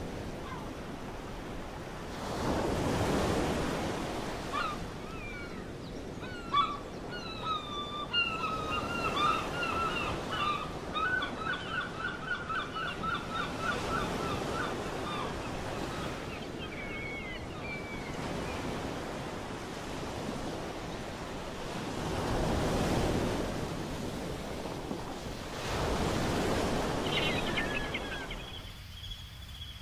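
Ocean surf washing in, rising and falling in slow swells, with birds chirping and trilling through the middle and a steady cricket chirr starting near the end.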